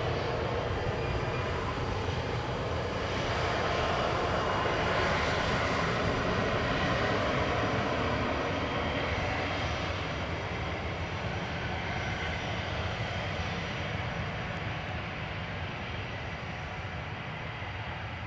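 Airbus A320's CFM56-5A1 turbofan engines running hard in reverse thrust during the landing roll-out on a wet runway. The rushing noise swells a few seconds in, is loudest mid-way, then slowly fades as the airliner slows and moves away.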